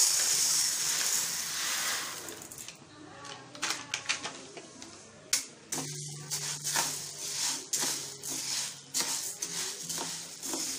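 Whole black urad dal grains poured into a dry nonstick frying pan: a loud rush of falling grains that fades over the first two seconds. Then the grains rattle and scrape irregularly as a spatula stirs them at the start of dry-roasting.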